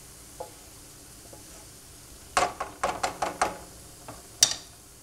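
Minced garlic and chili flakes sizzling faintly in olive oil in a frying pan. About two and a half seconds in there is a quick run of sharp clicks and knocks, and one more sharp knock near the end.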